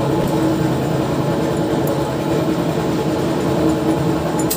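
Steady low mechanical drone from a running motor, with a couple of faint clicks of small metal parts being handled, once about two seconds in and again near the end.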